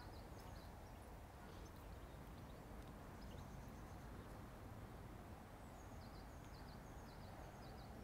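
Near silence with a faint outdoor background. A small bird chirps faintly: a few scattered high chirps, then a steady run of short high chirps, about two a second, in the second half.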